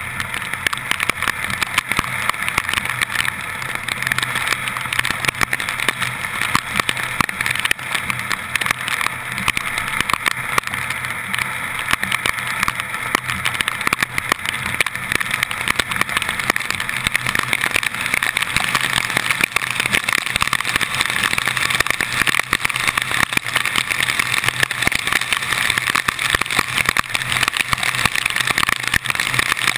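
Car driving on a rain-flooded road in heavy tropical-storm rain, heard from a camera mounted outside on the hood. A steady low hum of engine and tyres runs under a dense rushing hiss of spray and rain, with a constant rapid patter of raindrops striking the camera.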